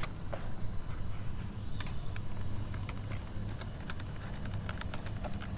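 A steady low machine hum with a faint high whine, and scattered light clicks and taps.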